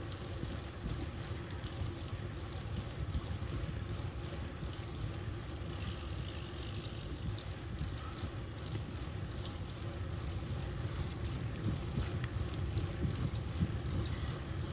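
Steady wind noise rushing over the microphone of a camera riding along on a bicycle, heaviest in the low end and slightly louder toward the end.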